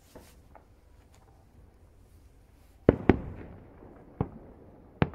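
Aerial firework shells bursting about a kilometre away: four sharp bangs in the second half, two in quick succession about three seconds in, one a second later and one near the end, each trailing off in a rolling echo.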